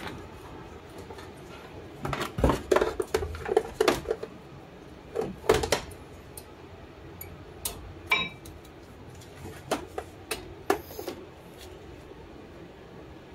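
Metal clicks and clanks from hand tools and brake parts being handled while refitting a 2008 Honda Civic's front brake caliper. They come in irregular clusters, the busiest about two to four seconds in and again near six seconds, with a few single clinks later.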